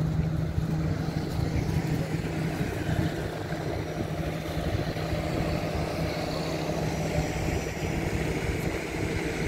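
Boat engines running with a steady low drone over a steady hiss of wind and water.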